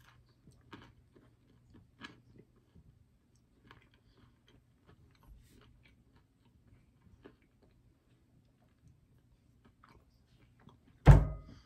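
A person chewing a mouthful of mini pizza bagel: faint, scattered soft clicks of the mouth over a low steady hum. Near the end comes a single loud thump.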